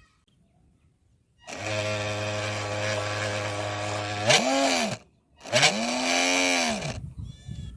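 Small 180-size brushed DC motor of a homemade RC boat whining under ESC throttle: it starts about a second and a half in and holds a steady pitch, then is throttled up and back down twice in quick swells before cutting off near the end.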